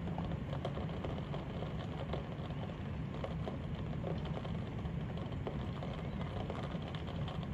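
Steady heavy rain falling, with scattered close drops ticking over a low, even rumble.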